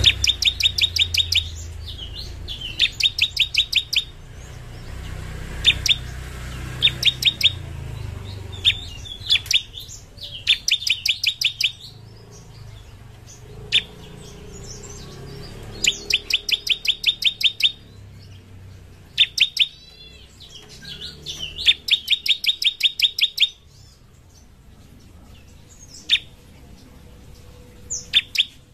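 Bar-winged prinia (ciblek) singing its rapid 'shooting' song: fast trains of sharp, evenly spaced high notes, about nine a second, each lasting a second or two, repeated with short pauses and scattered single sharp notes between them.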